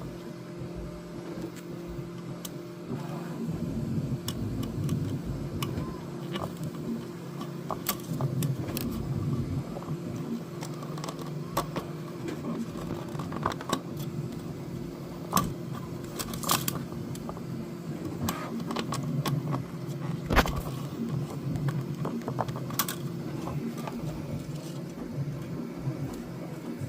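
Plastic filament and a 3D-printed plastic spool being handled and fitted, giving scattered clicks, taps and rattles, a few sharper knocks among them, over a steady low hum.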